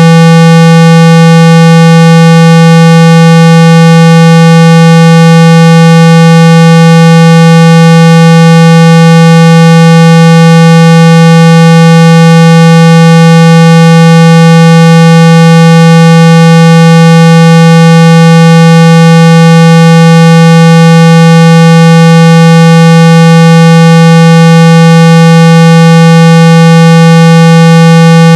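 Steady, loud 165 Hz test tone, a low buzzing hum with a string of fainter higher overtones, unchanging throughout. It is a speaker-cleaning tone, played to vibrate water and dust out of a phone's speaker.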